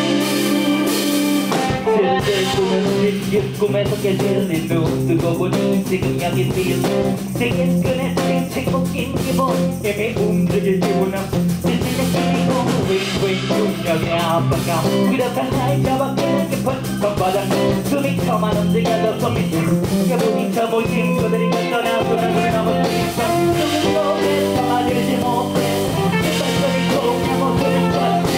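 Live band playing a blues groove on electric guitar, bass guitar and drums, with a rapper's vocals over it.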